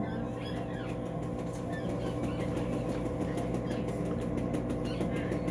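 Steady hum of operating-room equipment under fast rhythmic rustling, like a towel being rubbed briskly, with a few faint short high squeaks.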